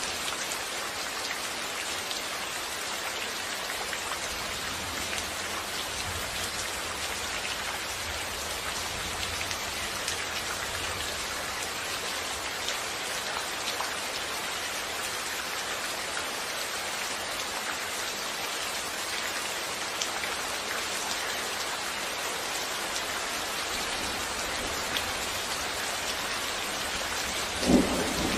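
Steady rain falling, an even hiss of many small drops pattering on a surface. Near the end comes one short, louder low thump.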